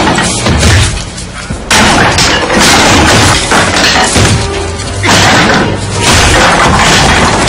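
Loud, tense horror-film score with heavy booming hits and crashing sounds. It drops back briefly about a second in and again near the five-second mark.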